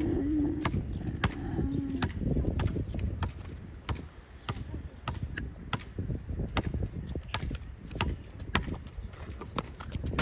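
Basketball being dribbled on a hard court: a quick, uneven run of sharp bounces, about two to three a second.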